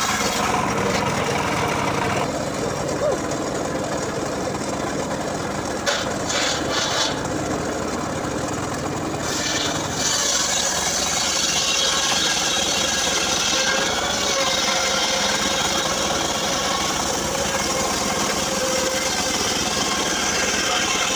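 Homemade engine-driven circular sawmill blade ripping lengthwise through a log: a steady rasping sawing sound over the running engine, growing brighter and harsher about halfway through.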